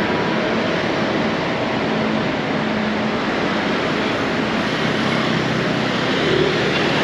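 Street traffic at an intersection: scooters and cars passing, a steady loud rush of road noise, swelling slightly as a scooter passes close near the end.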